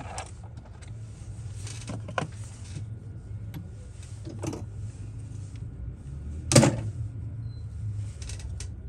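A handful of light knocks and clicks from a CPU reballing jig and its steel stencil being handled, the loudest about six and a half seconds in, over a low steady hum.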